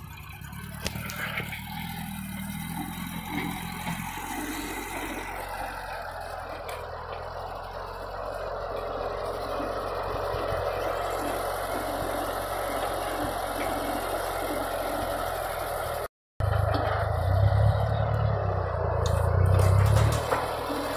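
Car engine of a homemade mini front loader running as the machine works and drives. After a brief dropout about three-quarters of the way through, the engine sounds louder and deeper for about three seconds.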